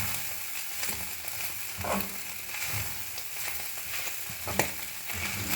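Ground beef sizzling in a cast iron skillet as it fries, with a few sharp clicks and low knocks from a utensil stirring the meat.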